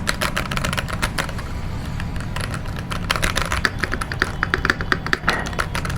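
Typing on a Keychron V1 mechanical keyboard with Cherry MX Brown switches: a rapid run of keystroke clicks that thins out for a moment after about a second and picks up again around three seconds in.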